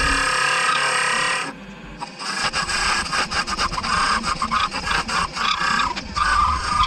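Wood lathe with a turning tool cutting and scraping a spinning wooden blank, in uneven strokes. The sound drops away briefly about a second and a half in, then comes back choppier.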